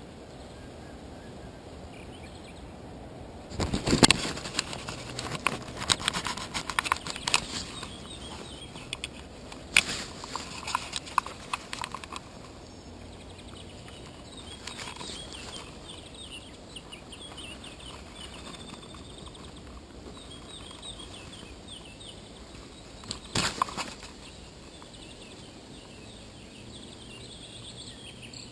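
Irregular knocks and rustles of handling noise close to a body-worn camera, in three clusters, over a steady outdoor hiss.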